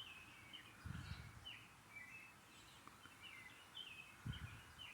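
Faint songbirds chirping, short repeated notes overlapping through the whole stretch, with two brief low thumps, one about a second in and one near the end.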